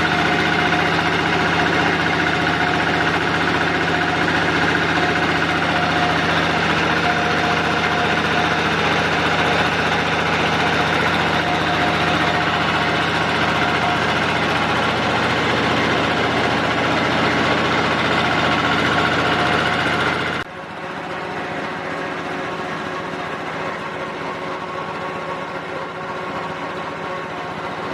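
Pellet-making machine running steadily on test, a loud, even mechanical drone with steady tones in it. About twenty seconds in the sound drops suddenly and carries on quieter.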